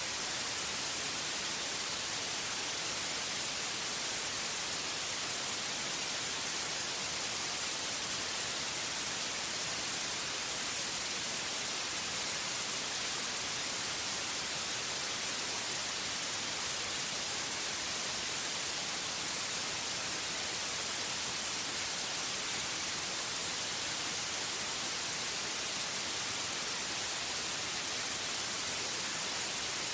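Steady white noise: an even, unchanging hiss, brightest in the treble, with no other sound.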